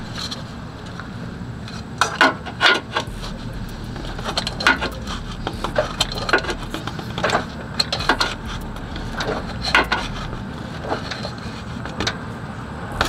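Scattered sharp clicks and knocks, about a dozen at irregular intervals, from hand work under a car tightening a part back in during an oil change. A steady low hum runs underneath.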